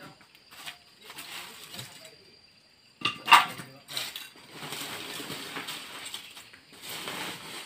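Hard lumps of mangrove charcoal clinking and clattering against each other as they are picked over and gathered by hand, with the loudest clink about three seconds in.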